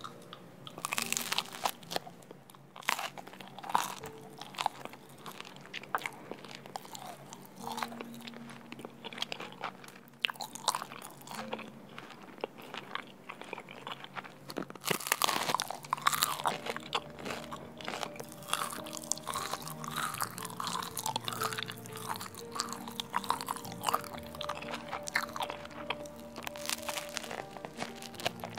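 A person biting into and chewing bread spread with custard cream: a run of crunches and chewing sounds close to the microphone. Soft background music comes in underneath about halfway through.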